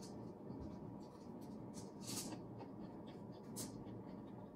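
Crispy deep-fried pork skin crackling as it is torn apart by hand and chewed. Several short scratchy crackles, the clearest about two seconds in and again about three and a half seconds in, over a faint steady hiss.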